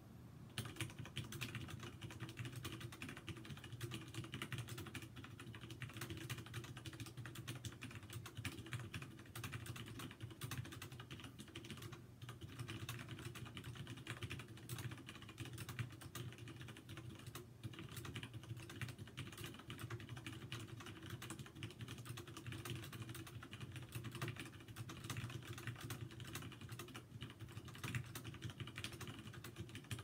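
Mechanical keyboard with stock Cherry Brown switches, ABS double-shot keycaps and a metal switch plate in a plastic case, typed on fast and without pause: a dense, even run of key clacks.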